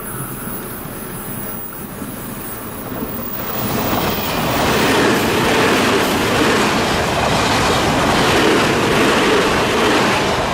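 Odakyu Odawara Line electric train passing over a level crossing. It grows louder about three and a half seconds in, then runs loud with a rhythmic clatter of wheels over the rails.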